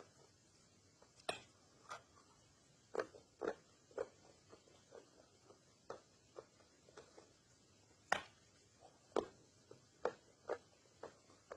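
Close-up crunching and chewing of compressed cornstarch chunks: a string of irregular crisp crackles and clicks, with a few louder bites.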